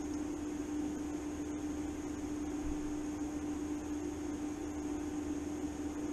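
TIG welding arc burning steadily on thin steel plate: a constant hiss over a steady hum from the welder.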